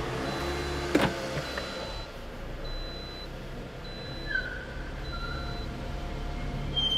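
The 2.4-litre 2AZ-FE four-cylinder engine of a 2012 Toyota Corolla XRS idling as the car creeps slowly forward, a steady low hum. There is a click about a second in, and faint short high beeps repeat throughout.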